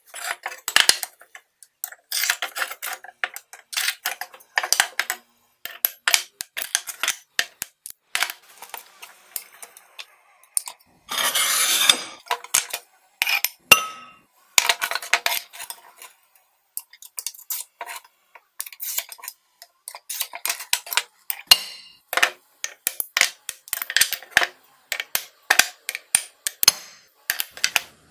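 Thick smalti glass pieces clinking and clacking as they are picked up, set down and stacked on a wooden tabletop, in many short irregular knocks. About halfway through there is a longer scraping sound, like glass sliding across the table.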